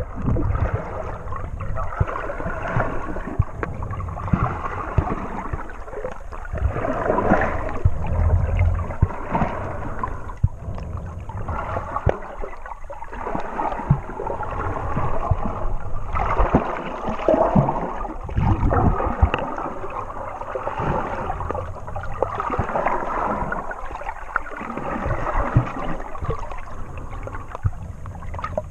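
Muffled water sound heard from a camera held under the sea surface while swimming: gurgling and sloshing that swells and fades every second or two, with scattered small knocks and clicks.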